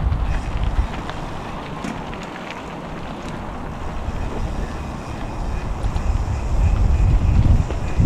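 Wind buffeting the microphone of a camera moving along a bumpy dirt trail, with a heavy low rumble and a few knocks from the ride. It eases off in the middle and grows louder again near the end.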